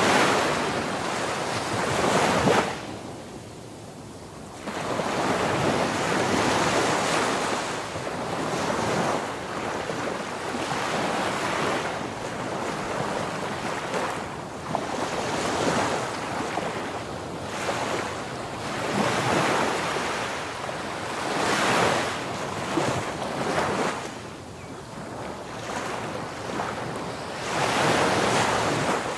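Surf washing in: a rushing noise that swells and fades every few seconds, with wind on the microphone.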